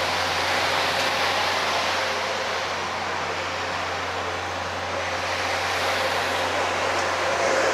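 Steady rushing noise with a constant low hum underneath, unchanging throughout.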